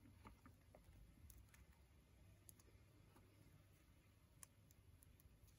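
Near silence, with faint scattered clicks as small rubber loom bands are stretched onto a plastic four-pronged loom tool and handled.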